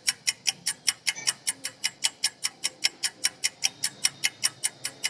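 Clock ticking sound effect: rapid, even ticks at about five a second.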